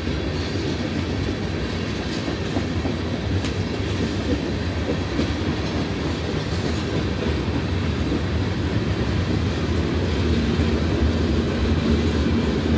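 Freight train cars rolling past: the steady rumble of tank car and covered hopper wheels on the rails, growing a little louder near the end.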